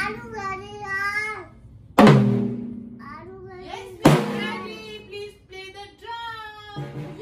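Loud drum-and-cymbal hits on a child's junior drum kit, two of them about two seconds apart and a smaller drum hit near the end, each ringing on. Between the hits a young child sings.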